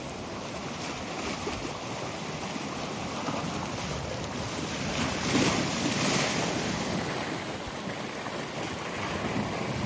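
Wind-driven waves breaking and washing on a bay shore, one louder surge about halfway through, with wind buffeting the microphone.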